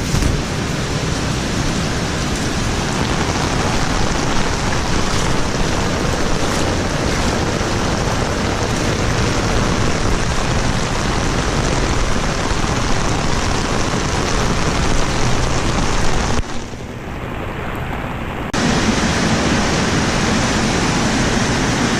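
Heavy tropical rain pouring down, a dense steady hiss. It drops back for a couple of seconds about sixteen seconds in, then returns.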